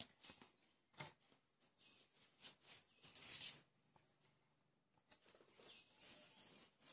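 Faint scratching and rustling of a pen and hand moving on paper, in short irregular strokes.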